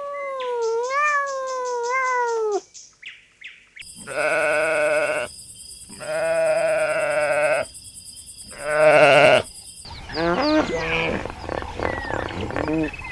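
Bleating farm animals: a long wavering call that falls in pitch and breaks off, then three long, quavering bleats a second or two apart, then a jumble of shorter calls and chirps near the end.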